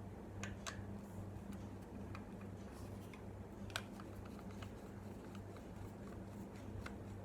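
Small scattered clicks and taps of a screwdriver and tiny screws being worked on a laptop hard-drive's metal holder bracket, with one sharper click about halfway through, over a steady low hum.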